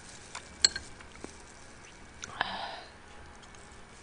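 Close-miked mouth sounds of someone eating steamed blue crab: a sharp wet click about two thirds of a second in, a few lighter clicks, and a short sucking sound about two and a half seconds in.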